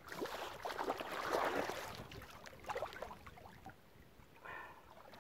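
Lake water splashing and sloshing as a carp is released back into it, loudest in the first two seconds, with a few smaller splashes after. A brief high-pitched sound comes near the end.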